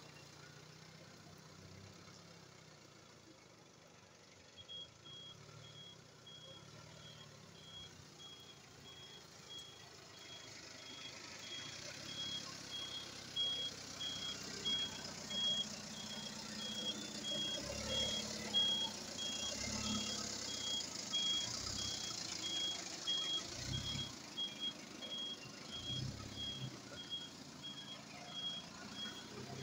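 Forklift reverse alarm beeping at a steady even rate in one high pitch, starting about five seconds in, over the low running of the forklift's Isuzu C240 four-cylinder diesel engine, which grows louder as the machine comes closer.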